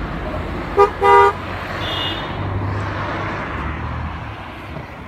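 A vehicle horn gives two quick toots about a second in, a very short one then a slightly longer one, over the steady low rumble of passing road traffic.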